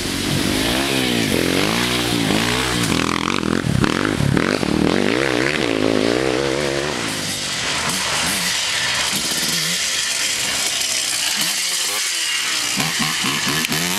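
Race quad engines revving up and down, the pitch rising and falling with each burst of throttle. The engine noise eases after about seven seconds and picks up again near the end.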